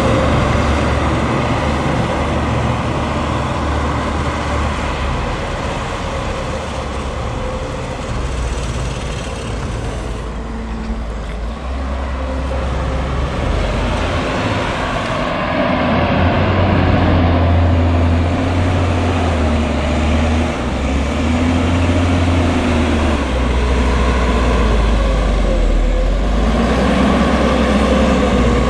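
Leitner LH500 snowcat's MAN D2866 six-cylinder diesel running under load as the tracked machine pushes maize silage with its blade, the engine note rising and falling. The engine drops back for a few seconds near the middle, then pulls harder again.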